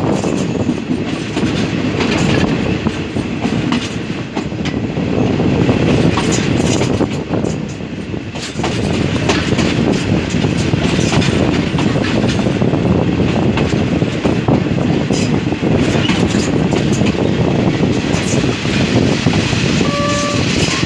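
Passenger train carriage running at speed, heard through its open window: a steady heavy rumble with wheels clicking over the rail joints.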